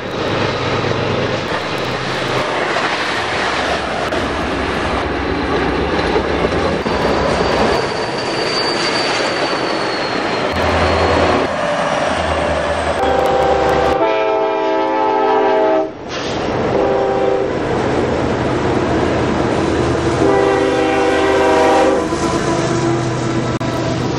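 Diesel-powered trains rolling past with wheel and rail noise over the steady drone of the locomotive engines. A locomotive air horn blows about halfway through and again near the end.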